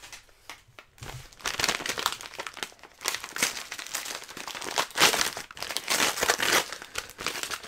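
Crinkly packaging being handled and pulled open, a dense, irregular run of crackles starting about a second in.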